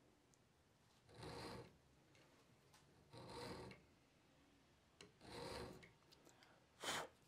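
Small hand file rasping on the steel frog stud of a Mauser 98k bayonet scabbard: three slow strokes about two seconds apart, then a shorter, sharper stroke near the end.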